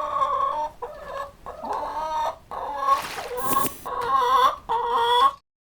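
Hen clucking, a run of short repeated calls that cuts off abruptly near the end.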